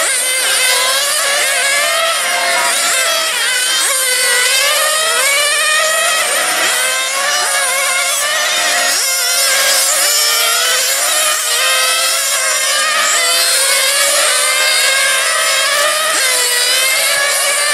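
Several 1/8-scale 4x4 nitro radio-controlled race cars running at once, their small two-stroke glow engines revving up and down in overlapping high-pitched whines as they brake and accelerate through the corners.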